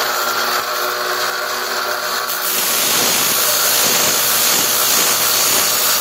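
Electric sharpening grinder running steadily as a steel AK-47 bayonet blade is ground on it. The grinding gets a little louder about two and a half seconds in.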